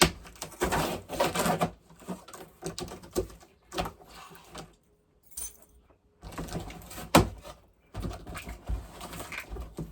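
Cardboard shipping box being handled: irregular rustles, scrapes and knocks, with a short gap about five seconds in.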